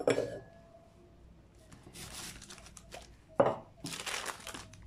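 Baking paper rustling and crinkling as rolled dough is cut with the rim of a drinking glass, with a sharp knock near the start and another about three and a half seconds in.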